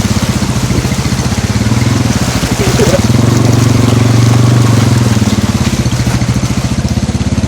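Yamaha Scorpio motorcycle's single-cylinder four-stroke engine running under way through floodwater, its pitch and level rising between about three and five seconds in, then settling back.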